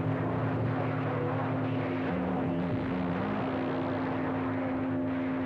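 CB radio receiver putting out a noisy incoming signal with no voice: a steady hiss of static with one low steady tone and a low drone running through it.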